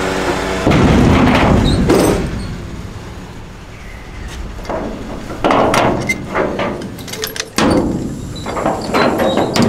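A series of loud bangs and clattering knocks, coming in several separate bouts, over a steady low engine rumble.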